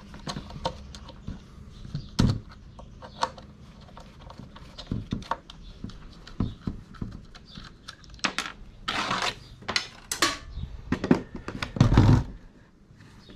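Metal clicks, clinks and knocks of tools and sewing-machine parts being handled during dismantling, with a rattling scrape about nine seconds in and a heavier thump shortly before the end.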